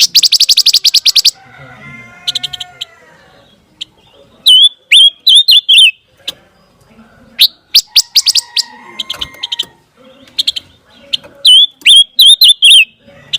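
Pancawarna songbird singing: a loud rapid run of chips at the start, then twice a burst of sharp, curling high whistled notes, with softer lower calls in between.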